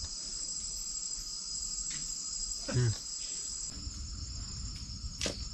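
Steady high-pitched chirring of night insects such as crickets, with a brief human voice sound about halfway through and a single sharp tap near the end.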